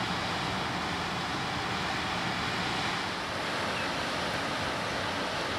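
Steady rush of flowing river water, an even hiss without breaks.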